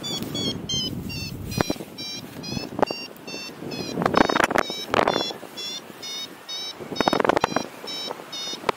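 Paragliding variometer beeping quickly, about three short beeps a second, the sound it makes while the glider is climbing in lift. Gusts of wind buffet the microphone twice, in the middle and near the end.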